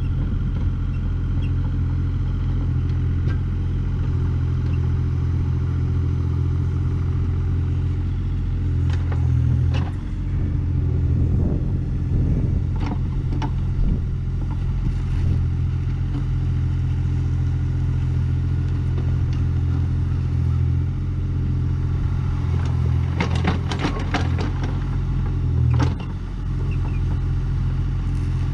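Kubota KX040 mini excavator's diesel engine running steadily while it works a tilting grading bucket along a ditch. A few sharp clanks and scrapes from the bucket and arm are bunched about nine seconds in and again near the end.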